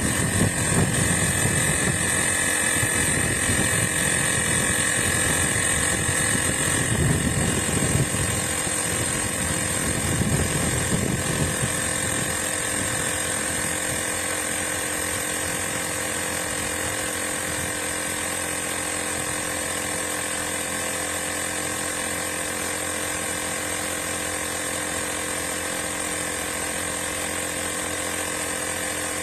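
Blestan cordless tire inflator's compressor motor running steadily, with a constant whine. An uneven low rumble underneath eases off about twelve seconds in.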